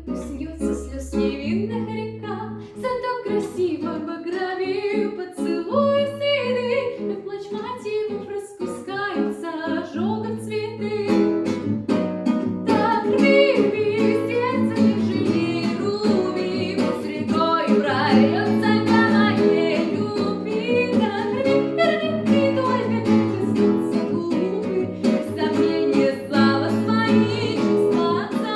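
A woman singing a pop song over guitar accompaniment, getting fuller and louder about a third of the way in.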